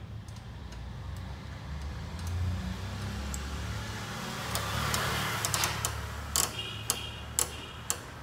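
Small ratchet on a car-door brace clicking as its cable is tightened, with louder sharp clicks about twice a second near the end and a low steady hum underneath.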